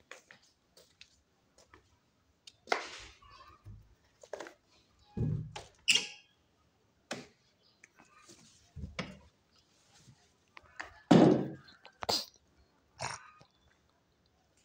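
Irregular short rustles and knocks from the phone being handled and moved around, with a few low bumps; the loudest comes about eleven seconds in.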